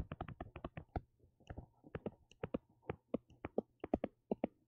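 An irregular run of light clicks and taps from a stylus striking a touchscreen as words are handwritten, several a second, with a short pause a little after a second in.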